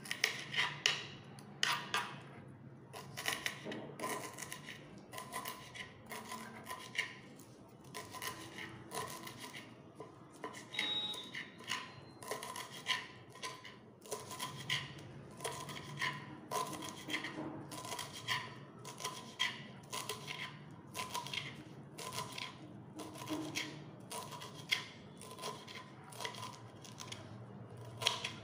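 Kitchen knife chopping fresh amaranth stems and leaves on a wooden chopping board: a steady run of crisp knife strokes, one or two a second, each blade knocking on the board.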